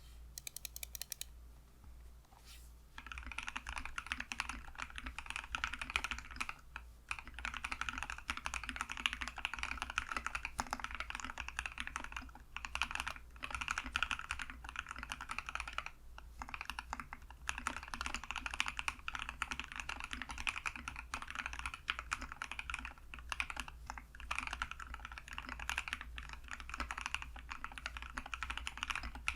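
Typing on a GK68x mechanical keyboard with lubed, filmed NK Silk Black linear switches and PBT keycaps: fast runs of keystrokes broken by short pauses, sparser in the first few seconds.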